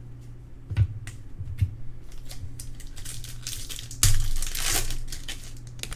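Baseball card pack wrapper crinkling and tearing open, after a few light taps and clicks of cards being handled. The crinkling is loudest from about four seconds in.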